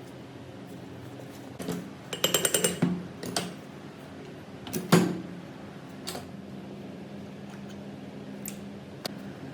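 Metal parts and tools clinking and knocking during hand work on the rusty machine: a quick run of about seven light ticks, then a single sharp knock about five seconds in, with a few more scattered clicks.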